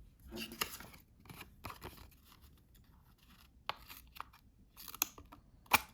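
Small spring-loaded multitool scissors snipping through paper stock in short, irregular cuts, with a sharper snap of the blades near the end.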